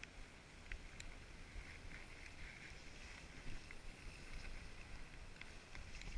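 Skis sliding over packed snow with a steady hiss and scattered small clicks, under low wind rumble on the microphone.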